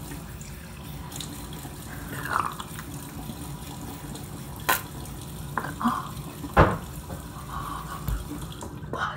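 Water running steadily from a bathroom sink tap, stopping just before the end. Two sharp knocks come about halfway through, the second the loudest, with a few short vocal sounds in between.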